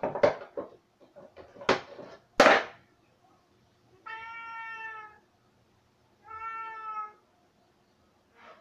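A domestic cat knocking and scuffing at things on a bookshelf shelf, a few sharp knocks in the first few seconds, then two steady meows of about a second each.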